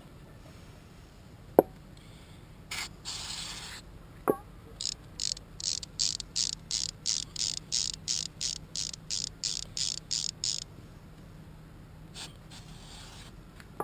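Hand-cleaning the small gears of a disassembled electric winch: a sharp metallic click, a longer hiss, then a run of about seventeen quick scrubbing strokes, roughly three a second.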